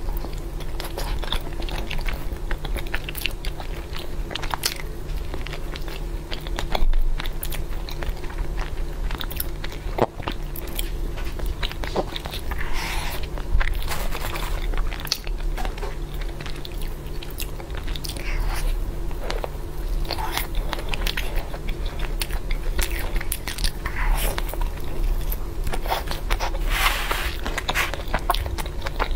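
Close-miked eating sounds: biting into and chewing a chocolate mochi (glutinous rice ball), with wet, sticky mouth sounds and many small clicks over a steady low hum.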